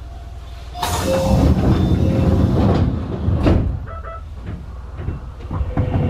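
Sliding passenger doors of an Enshu Railway 2000 series train closing at a station stop. A loud rush of air starts about a second in and lasts about two seconds, a knock follows about halfway through, and then a few lighter clicks.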